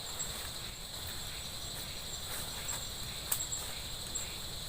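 Forest insect chorus, a steady high trilling that runs on without a break. A single sharp click sounds about three seconds in.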